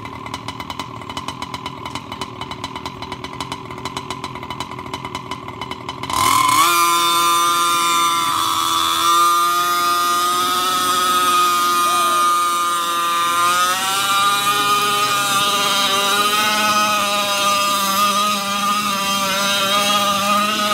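Small engine idling with a fast, even ticking, then revved up suddenly about six seconds in and held at high revs, its pitch rising and falling.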